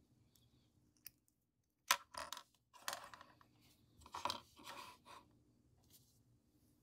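Hard cast-resin badges tapped and slid on a tabletop: a sharp click about two seconds in, then short bursts of clicking and scraping as the pieces are set down and moved.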